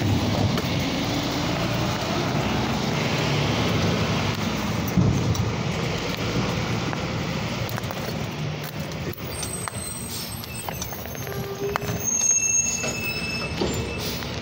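Automated side-loader garbage truck's diesel engine running as the truck moves along the street, a steady low rumble that eases off about two-thirds of the way through. A few brief high-pitched squeals come near the end.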